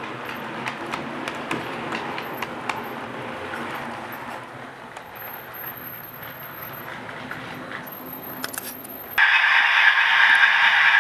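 00 gauge model railway coaches rolling along the track, a steady rumble with scattered sharp clicks from the wheels. About nine seconds in, this gives way abruptly to a much louder, steady higher-pitched sound.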